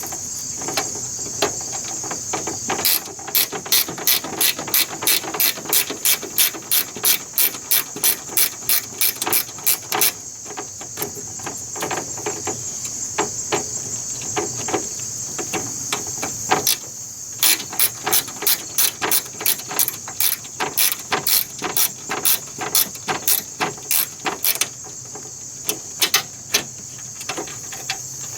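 Socket ratchet clicking rapidly as fan shroud bolts are backed out, in two long spells of about three to four clicks a second.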